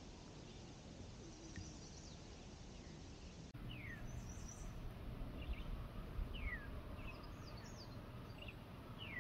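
Wild birds calling: a clear whistled note falling in pitch, heard three times about two and a half seconds apart, among scattered higher chirps, over a low steady outdoor background noise. The birdsong gets louder about three and a half seconds in.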